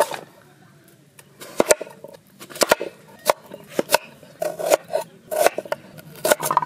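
Kitchen knife cutting a white radish into sticks on a wooden board: a dozen or so irregular sharp knocks as the blade goes through and strikes the board, some in quick pairs.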